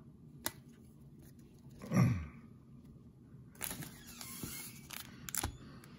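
Foil trading-card pack wrapper crinkling as it is torn open, with a few sharp clicks, over about two seconds in the second half. A short low hum of a man's voice comes about two seconds in.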